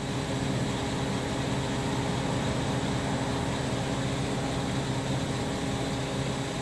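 Steady mechanical drone with a low, even hum, like an engine or motor running at a constant idle; no bursts from the impact gun.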